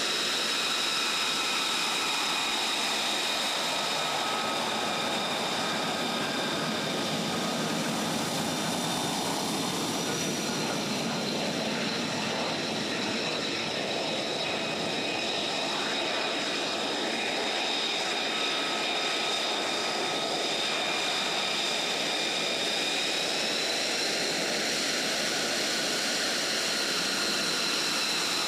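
F-35A Lightning II jets' Pratt & Whitney F135 turbofans running at taxi power: a steady high whine over a wide rush of engine noise, the whine stepping up a little near the end.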